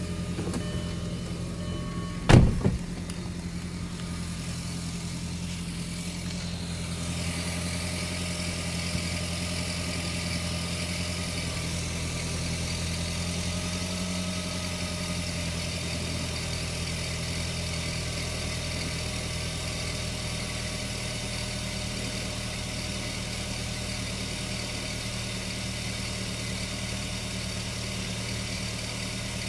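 Volkswagen Jetta Mk4 1.8T turbocharged four-cylinder engine idling steadily, the engine that makes an unidentified noise only when cold. A single sharp knock about two seconds in, and from about seven seconds a higher hiss joins the idle.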